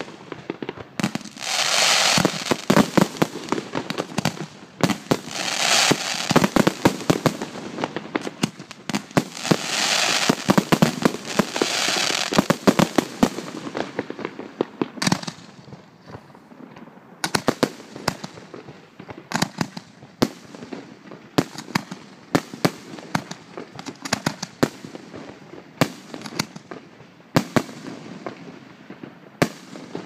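Aerial fireworks display: shells bursting overhead, with a dense run of bangs and hissing crackle through the first half, then single sharp bangs at irregular intervals through the second half.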